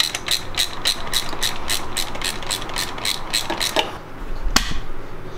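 Hand ratchet clicking steadily, about four clicks a second, stopping a little under four seconds in; a single sharp knock follows near the end.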